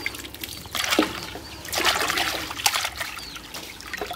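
Water splashing, sloshing and dripping in a plastic basin as hands rinse pieces of snake and lift them out of the water, in irregular bursts about a second, two seconds and near three seconds in.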